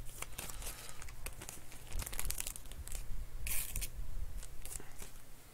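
Crinkling and rustling of packaging with small irregular clicks, and a short tearing sound about three and a half seconds in.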